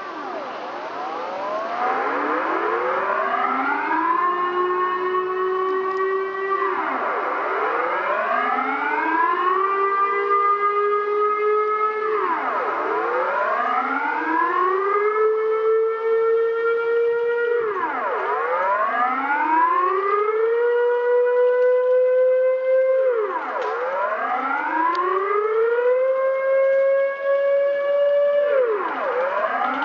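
Air raid siren wailing: its pitch falls sharply and climbs back up about every five and a half seconds, with several tones sounding together.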